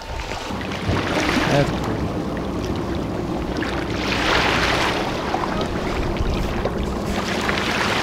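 Motorboat engine idling steadily with a low rumble, mixed with the wash of sea water against shore rocks, which swells for a moment about halfway through.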